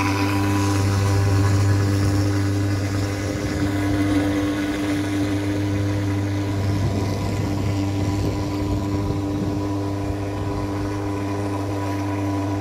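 Thermal fogging machine on an ATV running with a steady low drone while it blows out a thick cloud of disinfectant fog, slightly louder in the first few seconds.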